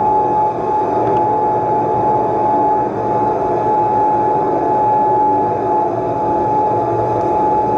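A steady, dense droning soundscape with one sustained high tone held throughout over a thick rumbling wash, accompanying the dance.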